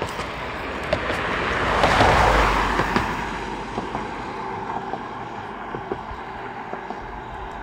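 A car passing on the road, its tyre and engine noise swelling to a peak about two seconds in and fading away over the next two seconds.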